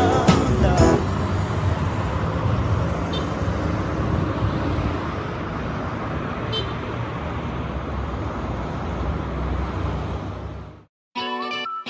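Street traffic noise: a steady rumble of cars passing on a wide city road, cut off suddenly near the end.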